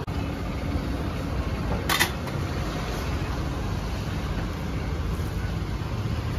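Steady low rumble of street traffic, with one short, sharp clatter about two seconds in.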